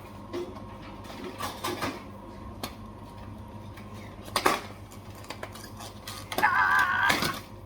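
Drinks being loaded into a vending machine's rows: scattered knocks and clatters, one sharp knock about four and a half seconds in. Near the end comes a wavering squeal of under a second.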